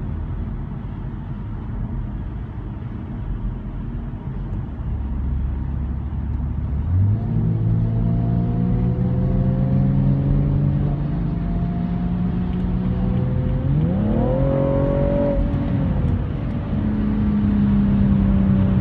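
Porsche Boxster S (981) 3.4-litre flat-six accelerating, heard from a closely following car over low tyre and road rumble. The engine note climbs slowly, then the revs rise sharply about three-quarters of the way in, hold for a moment and drop back to a steady pitch.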